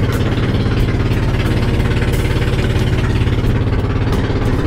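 Engine of a motorized outrigger boat (bangka) running steadily while under way: an even, loud low drone that holds one pitch.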